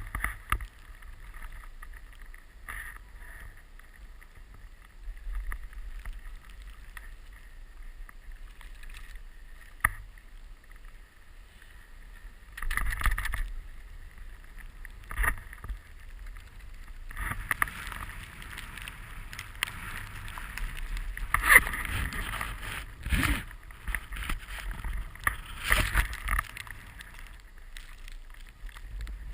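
Snowboard sliding and carving through fresh powder, an uneven swishing hiss that swells in louder stretches, with wind on the microphone and a few sharp knocks.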